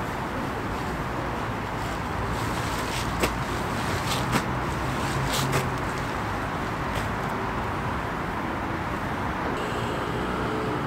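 Steady rumble of city traffic, with a few sharp crinkles and snaps between about two and seven seconds in as a plastic ground sheet is unfolded and spread out.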